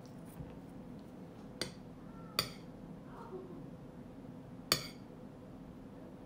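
Metal spoon clinking against a glass dish as seasoning is scooped onto a slice of green mango: three sharp clinks, the last, near five seconds in, the loudest.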